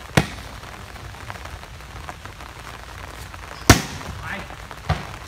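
Volleyball struck by hand on a sand court: a few sharp slaps, the loudest about three and a half seconds in, others just after the start and about five seconds in.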